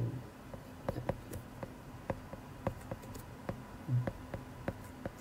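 Stylus tip tapping and clicking on a tablet's glass screen during handwriting: light, irregular clicks a few times a second, over a faint steady low hum.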